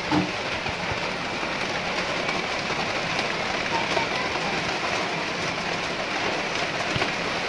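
Steady rain falling and pattering on surfaces, with a brief knock just after the start.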